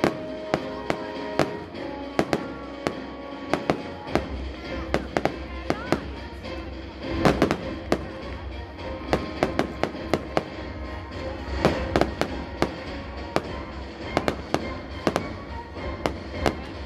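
Fireworks bursting in quick succession, many sharp bangs and crackles, over orchestral-style background music whose low bass comes in about four seconds in.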